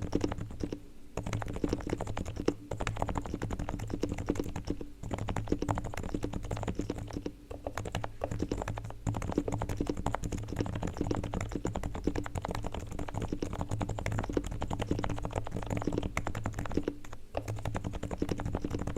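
Fast, continuous typing on a Realforce R3TL silent Topre electrostatic-capacitive keyboard with 45 g switches, with a few short pauses between bursts. Its sliders and springs are lubed with Krytox.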